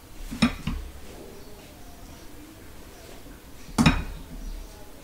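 Dishes clinking as a small glass bowl of gravy is handled among the plates: two sharp knocks, one about half a second in and a louder one near the end, with quiet handling noise between them.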